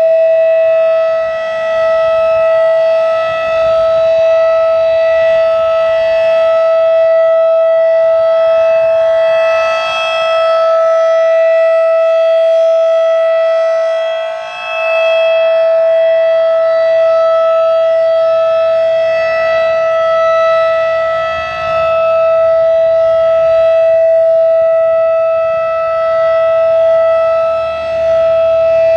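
Federal Signal 2001-DC outdoor warning siren sounding its Full Alert: one steady, unbroken tone held at full speed, very loud. It dips briefly in loudness a few times as the rotating head turns away and back.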